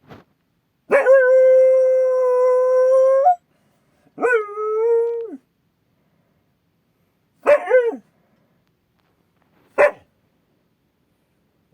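Akita dog howling on alert at a strange noise outside: one long, steady howl, then a shorter one, followed by two short barks.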